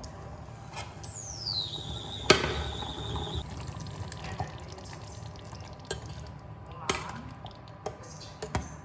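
Kitchen work sounds: scattered clinks and knocks of utensils and dishes, one sharp knock loudest. Near the start a high whistle-like tone falls, then holds steady for about two seconds.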